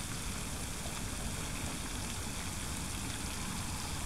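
Steady rushing outdoor noise with a flickering low rumble, even and unchanging, with no distinct events.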